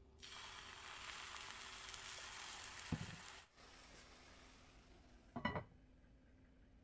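Water poured into a hot nonstick frying pan of fried-tofu pouch dumplings sizzles and hisses for about three seconds, with a soft knock near the end of it. About five and a half seconds in, a glass lid is set on the pan with a short ringing clatter, while a fainter sizzle goes on beneath.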